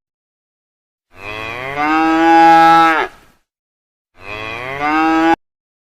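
Cow mooing twice: a long moo of about two seconds, then a shorter one that cuts off suddenly.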